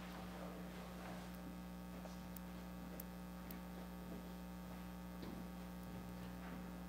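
Steady low electrical mains hum, with a few faint small ticks over it.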